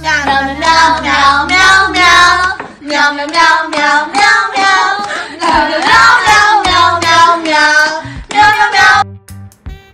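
A high voice singing a tune, phrase after phrase, breaking off about nine seconds in.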